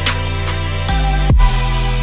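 Electronic background music with sustained tones over a heavy bass, and a deep downward-sweeping bass hit a little over a second in.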